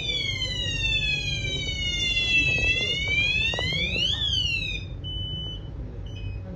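Fire alarm siren of a Sanjiang addressable fire alarm system sounding a slow wail, gliding down in pitch and back up, then cutting off about five seconds in. A few short, steady high beeps follow.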